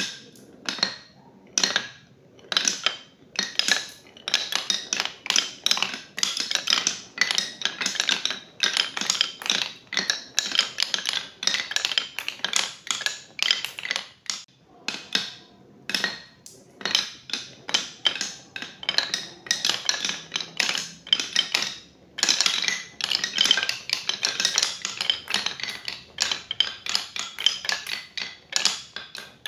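Marbles rolling down a HABA wooden marble run, a dense stream of rapid clicks and knocks as they clatter along and drop between the wooden chutes, with a couple of short lulls.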